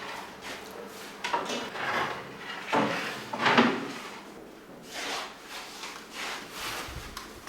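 Wooden bakery boards sliding and scraping on wood in a series of irregular strokes, the loudest about three seconds in.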